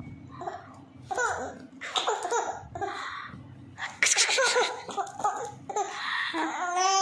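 A baby laughing in short repeated bursts, with a longer drawn-out laugh that rises and falls in pitch near the end.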